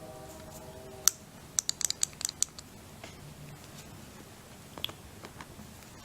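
Sharp metallic clicks and taps from a Brinks disc padlock being handled and a tension tool and hook pick being set in it: one click about a second in, a quick run of about eight clicks soon after, and a single one near the end. A faint hum in the first second stops at the first click.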